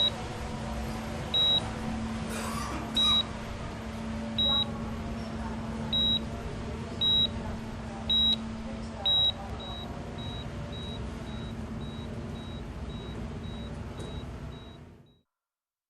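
A series of short, high-pitched electronic beeps over a steady low hum. The beeps come about once every second or so and are loud; from about nine seconds in they turn quicker and fainter. All sound cuts off suddenly near the end.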